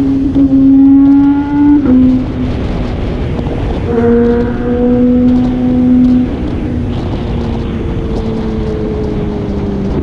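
Kawasaki ZX25R's 250 cc inline-four engine accelerating: the revs climb, then drop sharply at an upshift about two seconds in. The engine pulls strongly until about six seconds in, then the throttle eases and the note slowly falls as the bike slows.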